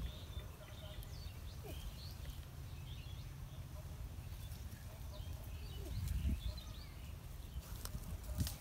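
Scattered short bird chirps over a steady low rumble, which swells briefly about six seconds in.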